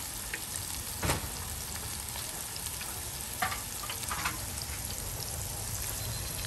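Battered calamari rings frying in hot oil in an electric deep fryer basket: a steady sizzle with a sharp pop about a second in and a few short crackles later.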